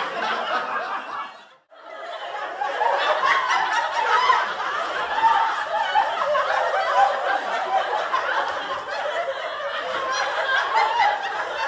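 Sitcom laugh track: a studio audience laughing. The laughter cuts off about a second and a half in, then a new round of audience laughter builds and carries on.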